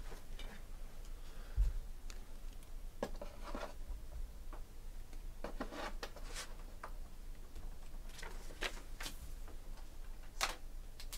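Scattered light clicks and rustles of trading cards, plastic sleeves and pack wrappers being handled and cleared off a table, at irregular intervals, with a dull bump about one and a half seconds in.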